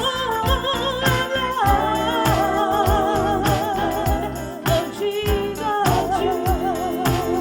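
Church music: a singer holding long notes with vibrato over a steady drum beat.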